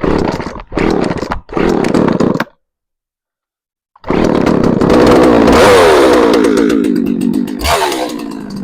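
Shindaiwa 357 two-stroke chainsaw being pull-started on choke: three short bursts as it is pulled over, then it catches about four seconds in and runs at high revs, the revs falling and settling lower near the end. A saw sold as non-running starting up.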